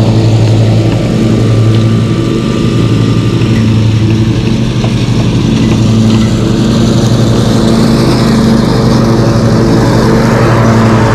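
Zero-turn lawn mower engine running steadily at a constant speed, a loud, even hum.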